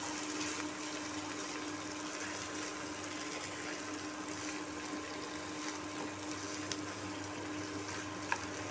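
Mashed white chickpea and potato masala frying in oil in a non-stick pan while a spatula stirs it: a steady sizzling hiss with a low hum underneath and a couple of light spatula clicks near the end.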